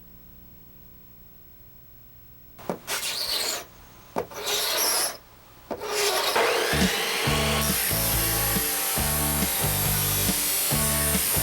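Faint hum, then two scratchy whooshing noise bursts about a second long each. Then music comes in with a falling sweep and, from about seven seconds in, a pulsing bass line on a steady beat.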